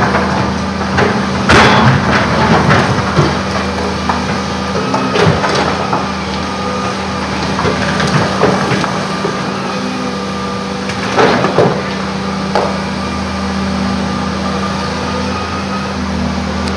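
Volvo 210 crawler excavator's diesel engine running steadily under load. A handful of sharp knocks and clatters of rock and earth sound over it as the bucket digs and drops its load.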